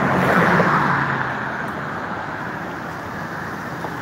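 Road traffic: a car passing on the street, loudest in the first second and then fading, over a steady background of traffic noise.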